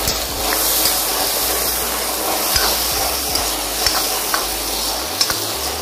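Onions and spice paste frying in hot oil in a kadai, sizzling steadily, while a steel ladle stirs them with a few scrapes and clicks against the pan.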